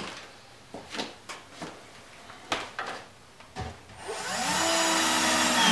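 A few light clicks and knocks, then a power drill spins up and runs steadily for almost two seconds, driving a short sheet-metal screw through a drawer slide into the back of a plywood drawer box.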